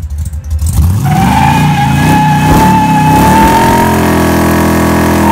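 Muscle car doing a burnout. The engine is held at high revs while the spinning rear tyres give a steady high squeal over it, loud, starting about a second in.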